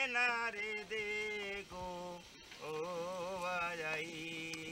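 A man singing a slow melody in long, held notes with a wavering pitch, breaking off briefly about halfway through.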